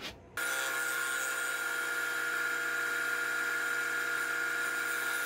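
Wood lathe running at steady speed with a constant whine of several tones, a mesquite vase spinning while it is sanded to take out black ebonizing marks. The sound starts abruptly about half a second in.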